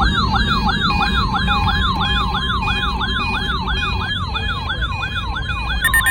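Electronic alert siren set off by a NOAA weather radio receiver, sounding a fast repeating rising sweep of about three whoops a second. Just before the end, the steady 1050 Hz weather radio warning alarm tone comes in under it.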